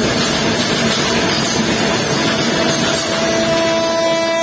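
LHB passenger coaches passing at high speed, about 130 km/h, behind a WAP7 electric locomotive: a continuous rush of wheels on rail and air. A faint steady tone comes in about three seconds in.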